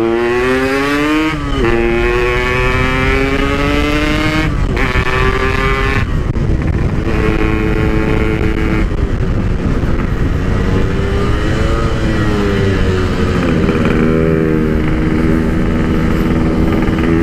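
Yamaha RX-King two-stroke single-cylinder motorcycle engine through a Packing Power PK1 aftermarket muffler, ridden on the road. The engine note climbs through the gears, breaking off at the shifts about a second and a half and four and a half seconds in, then runs steadier with small rises and falls. The PK1 keeps the exhaust note soft and quiet ('adem').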